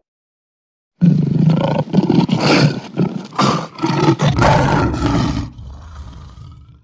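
Loud roaring sound effect, like a big cat's roar, for a channel logo reveal. It starts suddenly about a second in, goes in a run of strong surges, and dies away near the end.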